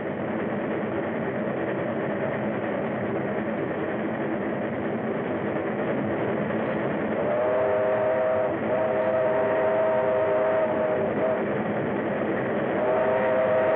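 Steam locomotive running with a steady rumble. About seven seconds in, its chime whistle blows in long blasts: one of about a second, a longer one of about two seconds, and another starting near the end.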